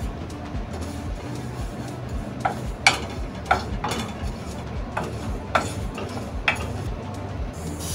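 A wooden spatula stirring and scraping sesame seeds around a dry stainless steel pan as they toast. There is a series of short scrapes from a couple of seconds in until near the end, over background music with a steady beat.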